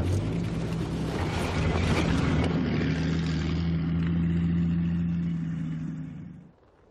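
Engine of a tracked over-snow vehicle running at a steady pace. The sound drops away sharply near the end.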